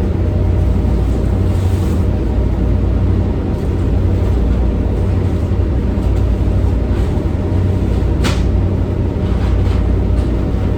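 Steady low rumble of a boat's diesel engines running, with a single brief knock about eight seconds in.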